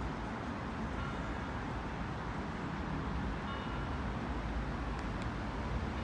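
Steady low rumble of city road traffic, with a few faint, short high chirps of birds about one and three and a half seconds in. There is a single sharp click about five seconds in.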